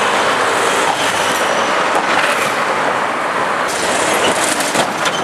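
Road traffic: a lorry and cars driving past, a steady, loud rumble of engines and tyres on a broken road surface, with a few sharp knocks about four to five seconds in.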